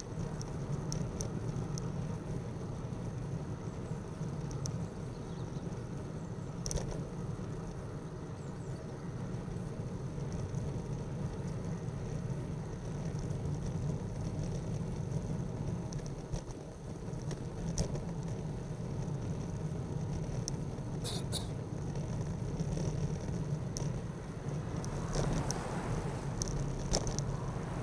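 Steady wind and road rumble on a bicycle-mounted camera while riding, with a few sharp clicks. A motor vehicle passes near the end.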